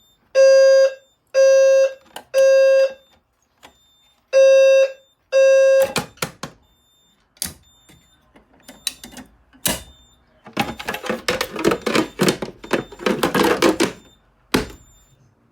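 EST Genesis low-frequency fire alarm sounder beeping a low, buzzy tone in the temporal-3 evacuation pattern: three half-second beeps, a pause, then two more before it cuts off about six seconds in. Scattered clicks follow, then a few seconds of rustling handling noise and a knock near the end.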